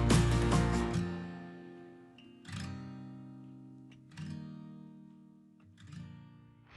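Background music: acoustic guitar, a full passage that stops about a second in, then a few single strummed chords that ring and fade.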